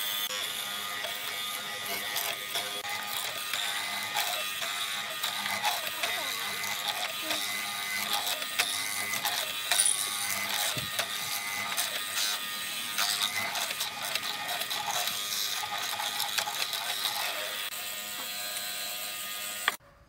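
Woodworking tool work: dense, rapid, irregular clicking and rasping, which cuts off abruptly near the end.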